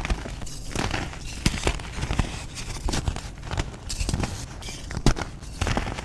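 Reformed gym chalk being crushed and crumbled, a dense run of irregular dry crunches and crackles, with a sharper snap about five seconds in.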